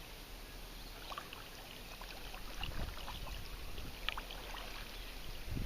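Kayak paddles dipping into river water, with splashing and dripping in scattered small ticks and two dull knocks, one midway and one near the end.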